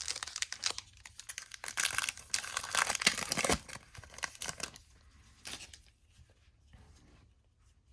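A trading-card pack wrapper being torn open and crinkled by hand, loudest in the first half and dying down to a few faint rustles after about four seconds.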